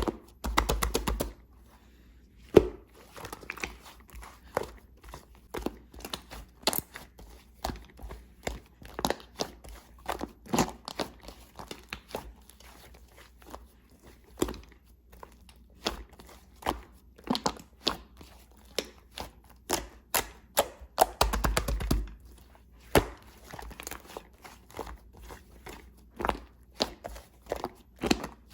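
Slime being squished and kneaded by hand with clay mixed in: a steady run of sticky pops, clicks and crackles, with two quick rattling flurries about half a second in and again about twenty-one seconds in.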